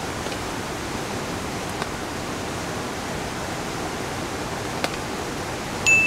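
Steady rushing water noise from rain and a valley stream. Right at the end a bright single-note ding starts and rings on.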